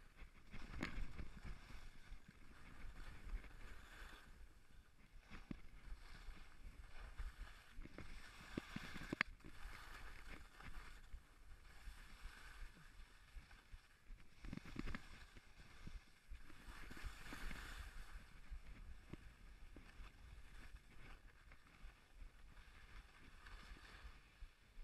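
Skis scraping and hissing through snow in swells every few seconds as the skier turns, with wind buffeting the helmet-mounted microphone. One sharp click about nine seconds in.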